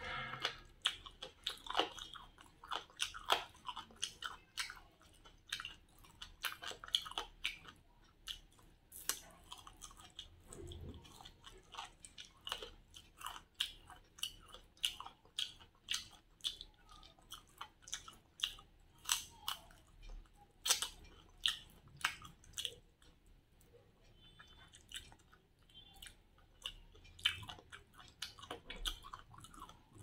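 A person chewing and biting grilled chicken close to the microphone: many short, wet mouth clicks and smacks at an uneven pace.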